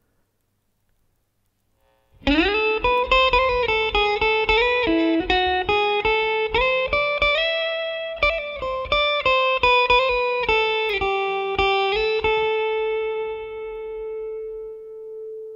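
Electric guitar recording played back through noise reduction to clean out line hum: after about two seconds of silence, a melodic line of picked notes opening with a slide up into the first note, ending on one long held note.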